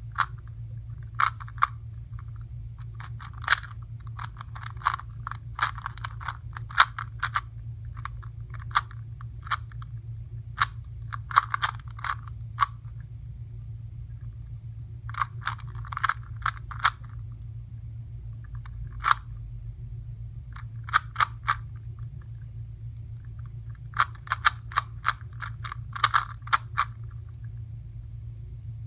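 Rubik's cube being turned by hand: quick runs of plastic clicks and clacks as the layers are twisted, coming in bursts of a second or two with short pauses between, over a steady low hum.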